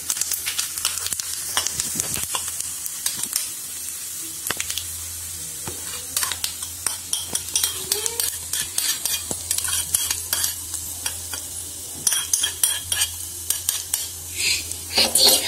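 Chopped coconut sizzling in ghee in a small aluminium pan while a steel spoon stirs it. The sizzle fades after the first few seconds, and a run of spoon clicks and scrapes against the pan follows as the fried coconut is scraped out.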